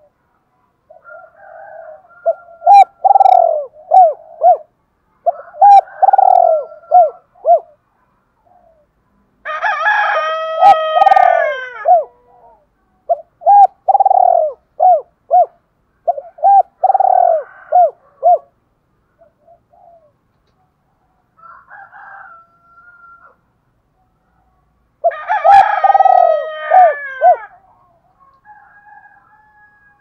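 Spotted dove cooing: several phrases of short, low coos, each phrase a quick run of notes. Twice, about ten seconds in and again near the end, a longer and louder call falls in pitch over about two seconds.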